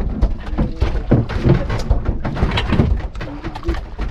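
Irregular knocks and thumps of freshly caught trevally being handled and flapping against the boat's slatted deck.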